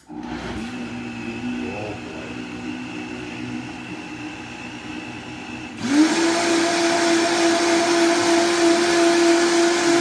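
High-powered countertop blender puréeing tomato soup. It runs at a lower speed at first, then about six seconds in is switched up to a louder, higher-pitched full-speed run.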